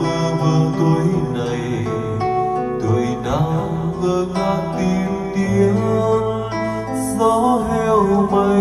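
A man singing Vietnamese lyrics karaoke-style into a microphone over an acoustic guitar backing track, both played through the room's speaker system.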